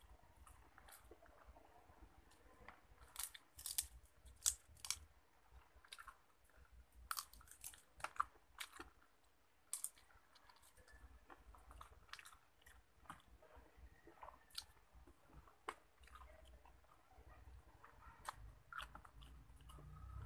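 A person chewing crisp fried food eaten by hand, with irregular sharp crunches. The crunches are loudest in clusters from about three to ten seconds in, and softer chewing follows.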